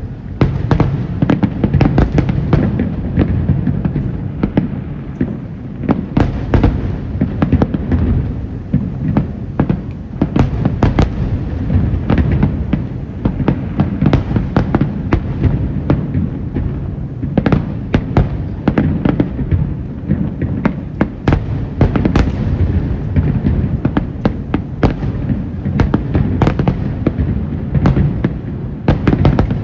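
Fireworks barrage: many sharp bangs in quick succession over a steady low rumble.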